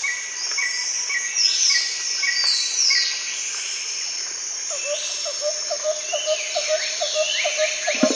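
Jungle ambience sound effect: many birds chirping and whistling over a steady hiss of insects. In the second half a lower call repeats about three times a second.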